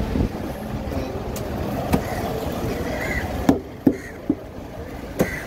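Several sharp knocks as a heavy curved fish-cutting knife chops down onto a wooden chopping board, over a steady low vehicle engine rumble.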